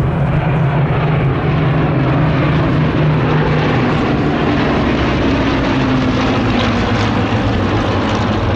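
Formation of six Hawker Hurricanes passing low overhead, their Rolls-Royce Merlin V12 piston engines and propellers making a loud, steady, deep drone. The low note drops slightly in pitch about midway as the aircraft come over.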